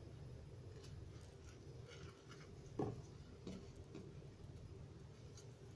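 Faint rustling of jute twine being wound by hand around a plastic bottle, with a few soft knocks and taps from handling the bottle, the loudest about three seconds in.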